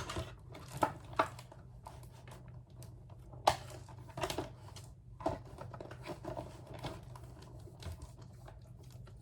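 Irregular clicks, crinkles and rustles of a doll's plastic and cardboard packaging being handled as the doll is freed from its box, with the sharpest clicks right at the start and about three and a half seconds in.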